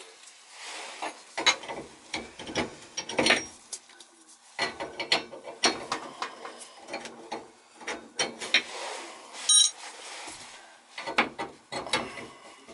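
Seat wrench being turned in the cold-water valve body of a three-handle tub/shower faucet, with irregular ratcheting clicks and metal scraping as it works on a badly worn faucet seat with a hole broken in its side.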